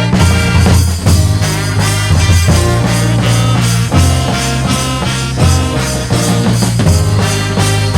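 Brass band playing a song loudly: horns over a heavy bass line and drums with a steady beat.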